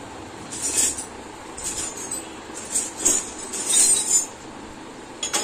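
Metal tools and engine parts clinking and scraping while being handled, in about five short bursts; the engine is not running.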